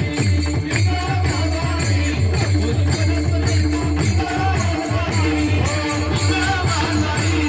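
Marathi Pingla folk music with a steady drum beat, jingling percussion and a wavering melody over a held drone.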